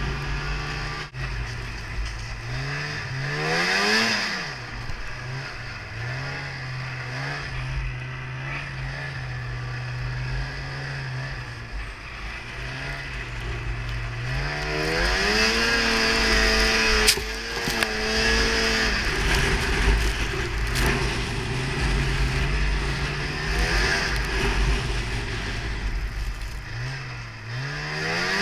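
Polaris Indy Trail 500 snowmobile's two-stroke engine running under throttle through powder snow, its pitch rising and falling with the throttle. Revs climb about three seconds in, settle, then climb again about fourteen seconds in and hold high for a few seconds before dropping back, with another climb near the end; a couple of sharp knocks come with the ride.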